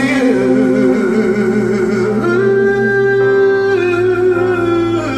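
Male voice singing long, wordless held notes with vibrato over a karaoke backing track. About two seconds in the voice slides up to a higher note and holds it, then drops near the end.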